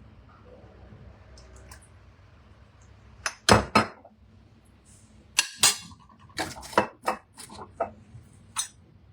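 A utensil knocking and clinking against a pot as thick soup is stirred. There are a dozen or so sharp strikes in irregular succession, starting about three seconds in, the loudest near the start of the run.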